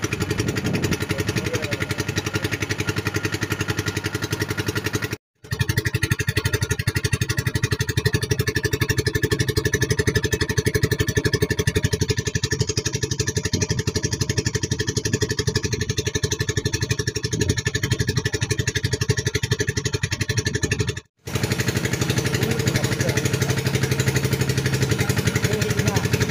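A small boat engine running steadily with a fast, even beat, broken off twice for a moment.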